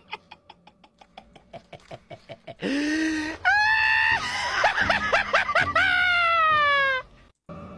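A man's frantic laughter: quiet rapid chuckling pulses at about six a second, then from about two and a half seconds in a loud, high-pitched shrieking laugh in long falling squeals that stops abruptly near the end.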